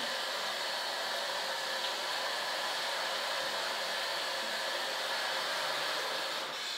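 Shower head spraying water steadily onto a person's head and shoulders in a tiled shower stall: an even hiss that begins to ease off right at the end.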